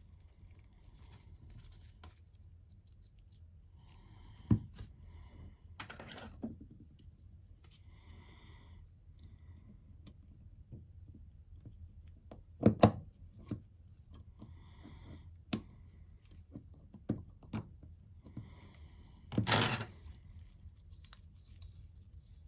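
Hands working on a windshield wiper linkage and tools: scattered clicks and knocks of metal parts, with the loudest a double knock about halfway through, and two short scraping rasps, one early and a louder one near the end.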